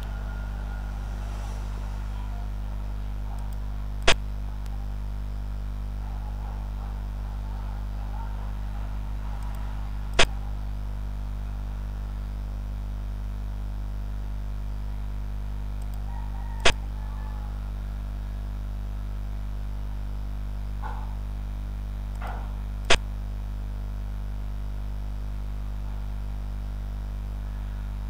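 Steady low electrical hum, with four sharp clicks about six seconds apart. The clicks are the move sound of a xiangqi (Chinese chess) program as each piece is placed.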